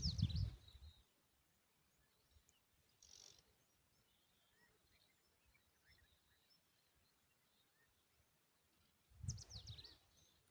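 Tailorbird chirping at the nest: a burst of quick, high, falling chirps at the start and again near the end, each with low rustling thumps under it, and faint scattered chirps between.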